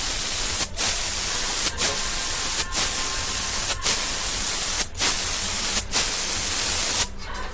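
Cheap compressed-air paint spray gun at about 30 psi spraying in a run of hissing bursts. The trigger is let off for a moment roughly once a second, and the spray stops near the end.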